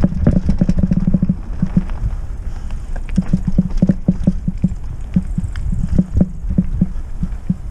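Trek Roscoe 6 hardtail mountain bike rattling over rough trail: rapid, irregular knocks and clicks from the frame, chain and tyres over a low rumble.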